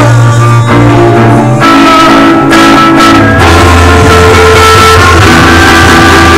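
Rock band playing loud through amplifiers: electric guitars and an acoustic guitar playing held chords, changing about a second and a half in and again about three seconds in.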